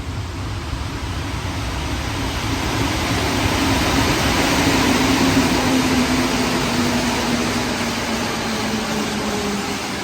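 Rubber-tyred metro train running on wet track. The noise swells to a peak mid-way and eases off, while a motor tone falls slightly in pitch as the train slows.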